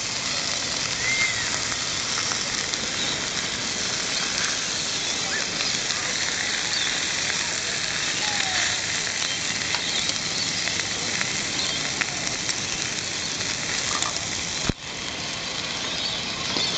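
Beef chunks sizzling on a grill: a steady hiss with small crackles, with a brief drop-out near the end.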